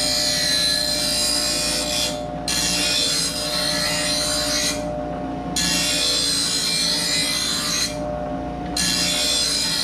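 Bench grinder sharpening a dull steel lawn mower blade: the wheel grinds the edge in passes of two to three seconds, with the blade lifted off three times, leaving only the grinder's steady motor hum.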